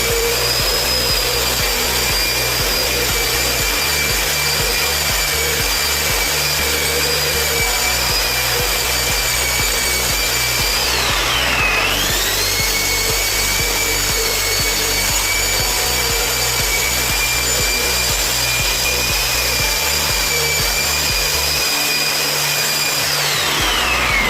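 Electric wall-sanding machine running against wall putty with a steady high whine over a rough sanding hiss. Its pitch dips briefly about halfway through, then picks back up, and the motor winds down near the end.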